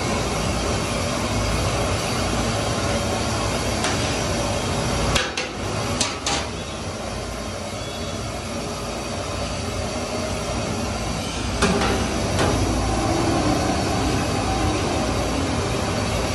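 Gas burner under a large aluminium cooking pot, running with a steady rushing noise, with a few sharp metal knocks as utensils and the lid strike the pot, about five, six and twelve seconds in.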